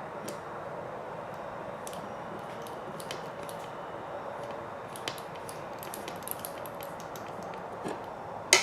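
Small plastic and metal kit parts, screws and nuts, clicking and tapping lightly as they are handled and fitted, over a steady background hum. The clicks come more often toward the second half, with one sharper click near the end.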